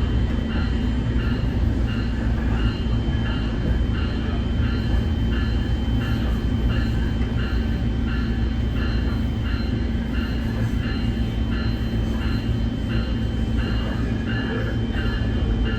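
Nippon Sharyo diesel multiple unit running, heard from inside the railcar: a steady low rumble while the train's bell rings on and on, about three strikes every two seconds.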